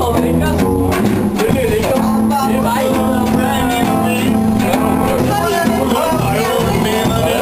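A rockabilly band playing live, with guitar.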